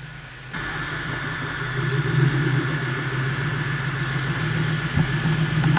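A 2019 Dodge Charger SXT's V6 engine idling steadily, starting abruptly about half a second in, with a light knock about five seconds in.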